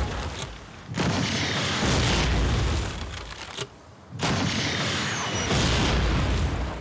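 A series of heavy shell explosions on a war film soundtrack. Each blast starts suddenly and trails off in a long rumble: one about a second in, another at two seconds, one just after four seconds and one more near five and a half.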